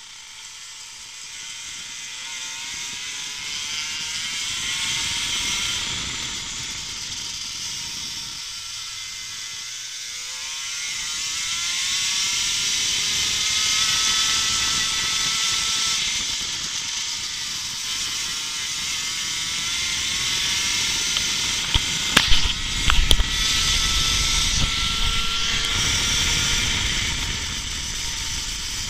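Racing kart engine heard onboard at speed. Its pitch drops as the driver lifts for corners near the start and again about eight to ten seconds in, then climbs slowly along each straight, with wind noise on the microphone. Around two-thirds of the way in there is a brief cluster of sharp knocks with a low rumble.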